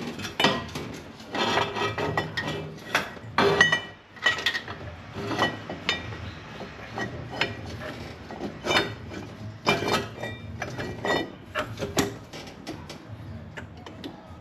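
Cast turbo exhaust manifold being handled and test-fitted against the engine's cylinder head: a string of irregular metal clinks, knocks and scrapes.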